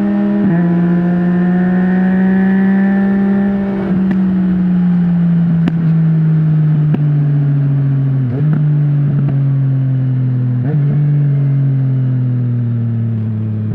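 Yamaha MT-09's inline three-cylinder engine through an Akrapovic full-system exhaust with no dB killer, heard from the rider's seat. The note steps down with a gear change about half a second in, then sinks slowly as the revs fall, with two brief dips about eight and eleven seconds in.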